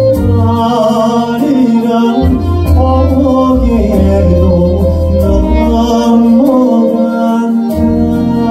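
A male Korean folk singer (sorikkun) singing a slow melody with long held, bending notes into a microphone, over amplified upright double bass and band accompaniment.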